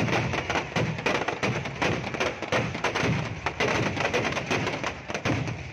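Firecrackers packed inside a burning Ravana effigy going off in a rapid, unbroken string of sharp cracks, with deeper thuds among them.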